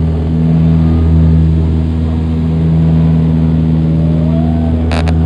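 Turboprop airliner's engine and propeller heard from inside the cabin: a loud, steady drone with a deep, even hum. Two sharp clicks come close together near the end.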